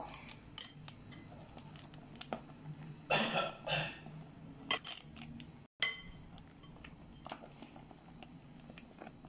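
Spoon stirring chocolate chips into a thick chocolate cream in a glass bowl: soft, faint scraping with light clicks of the spoon against the glass. Two short breathy bursts come a little after three seconds in.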